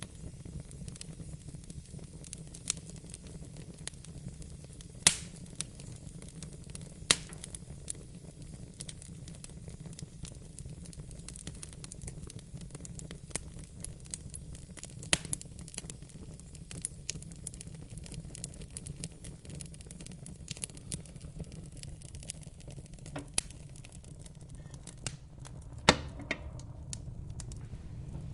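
Wood fire burning in a fireplace: a steady low rumble of flames with irregular sharp crackles and pops, the loudest about five, seven and twenty-six seconds in.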